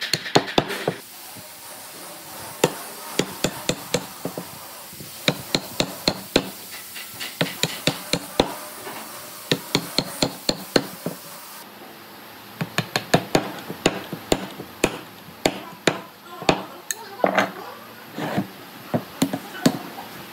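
Mallet striking a wood chisel, chopping out a joint in reclaimed railway-sleeper hardwood: runs of sharp knocks, about two to three a second, broken by short pauses.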